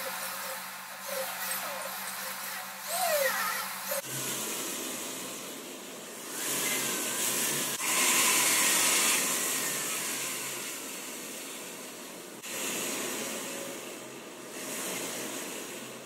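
A small blade shaving a green jewellery-wax rod as it turns in a handpiece: an uneven hissing scrape that swells and fades, loudest about eight to nine seconds in.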